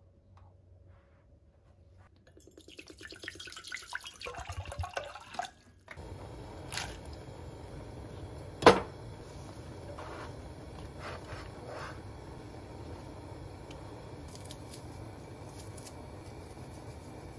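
A rapid run of clicks builds for about three seconds and stops abruptly. Then comes a steady hiss as chopped radish is slid off a plastic cutting board into a pot, with one sharp knock of the board against the pot rim and a few lighter knocks and scrapes.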